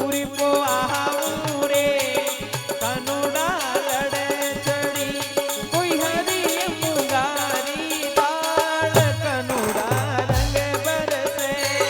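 Rajasthani folk bhajan music: a wavering melodic line over steady, busy hand percussion.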